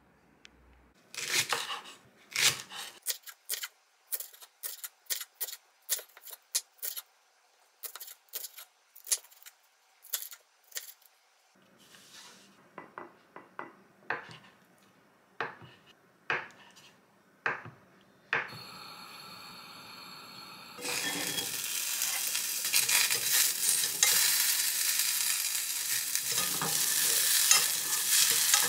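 A kitchen knife chopping on a wooden cutting board in quick sharp strokes, then softer cuts, the blade going through a block of tofu. Near the end, sliced green onions are frying in oil in a pan, sizzling steadily while wooden chopsticks stir them.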